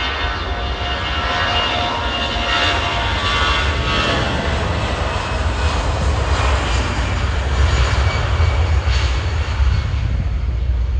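Airbus A320 jet engines running as the airliner moves along the runway. A steady high whine fills the first few seconds, then gives way to a louder rushing jet noise over a deep rumble.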